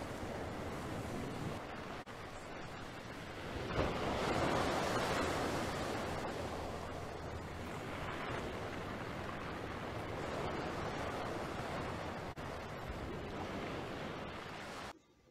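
Steady outdoor rush of wind and sea surf, swelling a little about four seconds in and cutting off shortly before the end.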